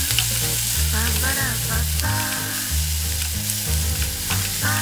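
Instant noodles and shredded vegetables sizzling in a hot nonstick wok as they are stir-fried, tossed and lifted with chopsticks and a silicone spatula.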